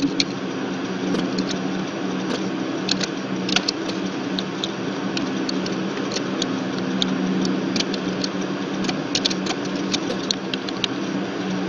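Computer keyboard keystrokes, irregular single clicks and short runs of typing, over a steady low hum.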